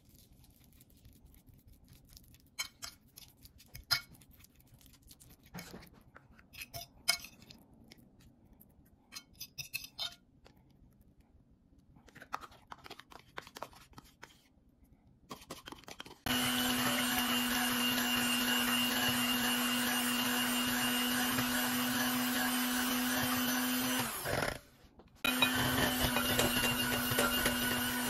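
Light scattered clicks and scrapes of a fork and spoon on crockery as ripe bananas are mashed and scooped. About 16 s in, an electric hand mixer starts and runs steadily with a strong hum, beating a mixture in a glass bowl. About 24 s in it winds down and stops, then starts again a second later.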